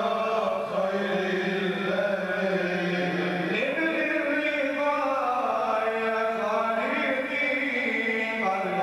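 A man's voice chanting long, held, ornamented notes into a microphone through a PA, with no instruments. The pitch slides up a step about three and a half seconds in.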